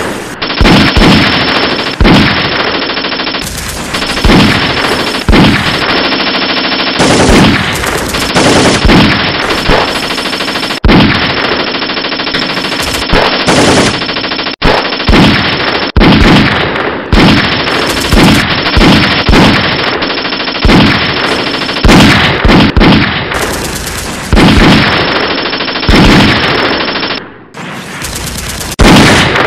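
Loud, sustained automatic rifle fire: rapid bursts of shots following one another with only brief pauses, with a short lull a little before the end.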